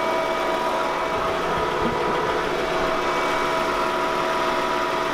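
Mercedes-Benz W210 E-Class engine idling steadily with the hood open, with a few steady whining tones over the running.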